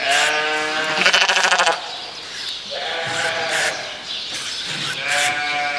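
Sheep bleating: three bleats, the first long and wavering towards its end, the second about a second long, the third starting near the end.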